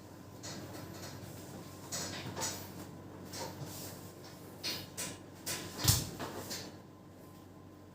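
Handling noises: a run of rustles and light knocks, the loudest a dull thump about six seconds in.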